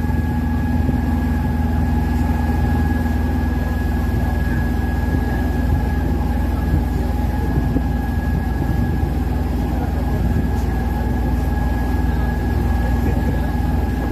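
Open tour boat's engine running steadily underway, a low drone with a thin steady whine above it.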